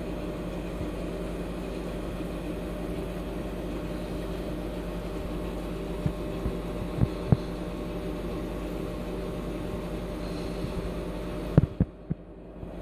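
Aquarium pump humming steadily with an even, buzzing tone. A few light knocks come in around the middle, and the loudest comes near the end.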